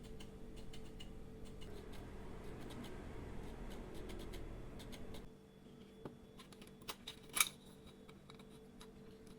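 Scattered faint clicks over a low steady hum, with a few sharper clicks after the hum drops about five seconds in; the loudest is a single sharp click near the end.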